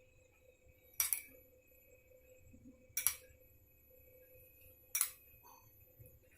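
Three light clinks of a metal spoon against a cooking vessel, about two seconds apart, as ghee is spooned over the layered biryani.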